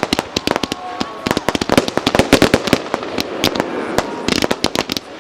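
Fireworks display: a rapid, unbroken string of bangs and crackles, many reports a second, thickest around the middle.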